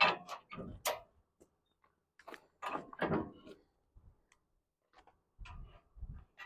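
Steel trailer ramp hardware being handled: scattered short metal clicks and knocks as the hitch pin and ramp bracket are worked. There is a cluster near the start, another about three seconds in, and a few low thumps near the end.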